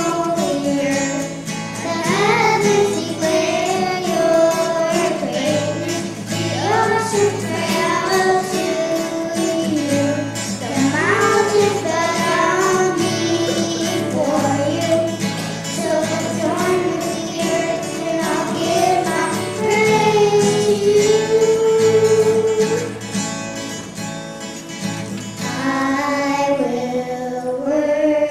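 Two children singing a worship song together, accompanied by a strummed acoustic guitar.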